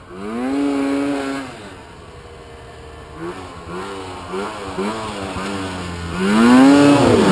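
Snowmobile engine revving as the machine rides toward the camera: a strong rev in the first second or so, a run of short throttle blips, then a long rising rev, the loudest, near the end.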